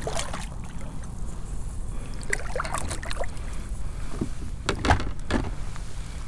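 Hollow knocks and clatter of gear and hands against a plastic fishing kayak, in small clusters about two and a half seconds in and again near five seconds, over a steady low rumble.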